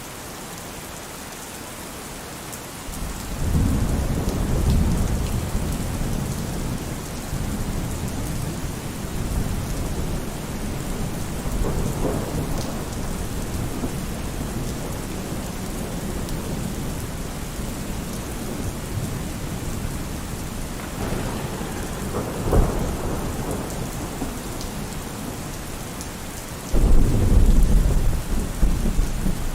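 Steady rain with rolling thunder. A low rumble swells in about three seconds in and rolls on for several seconds, sharper claps come near the middle and about two-thirds through, and a loud rumble breaks near the end.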